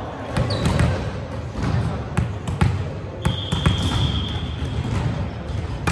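A ball bouncing on a hardwood gym floor, a string of irregular thuds echoing in a large hall. Voices murmur in the background. A thin, high, steady squeak runs for about two seconds midway.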